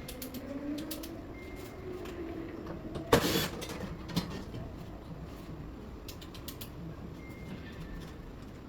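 Small clicks and knocks of air conditioner parts being handled during reassembly, with one loud clatter about three seconds in and a faint hum rising in pitch over the first few seconds.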